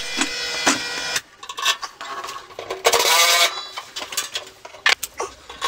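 Clicks and knocks of metal hardware as the unit heater is hung on its angle-iron hanger, with a short whirring burst from a tool about three seconds in.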